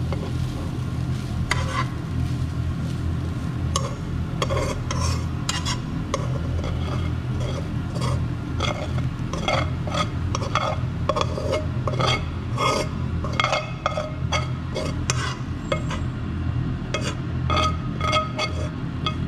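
A metal spoon scraping and clinking against a nonstick wok as cooked minced meat is pushed out into a bowl, in quick irregular strokes over a steady low hum.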